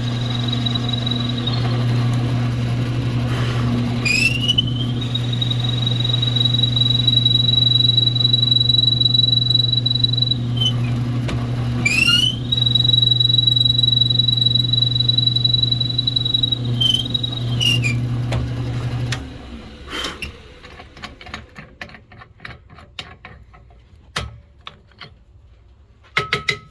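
Drill press motor running with a steady hum while the bit is fed into a pen blank, giving a high steady squeal that glides up as the bit cuts in and falls away as it is backed out, twice in a row. About 19 seconds in the motor is switched off and winds down, leaving a few small clicks and knocks of handling.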